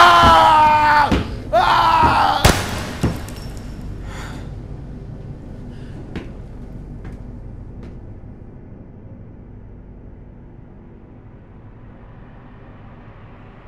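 A man screaming, his voice sliding up and down, cut off about two and a half seconds in by a sudden loud bang. After it a low drone fades slowly away, with a few faint clicks.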